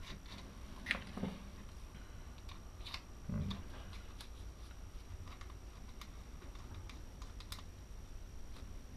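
Faint scattered clicks and light handling noise of small plastic and metal parts as hands fit an accessory onto a Dremel 3000 rotary tool that is not running, with a soft low thump about three seconds in.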